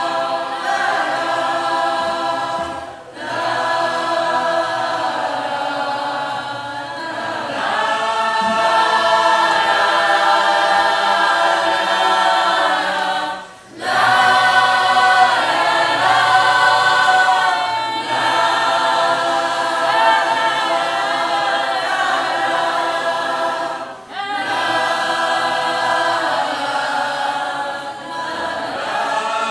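Group of voices singing a cappella in harmony: long held phrases, several voices together, broken by short pauses about every ten seconds.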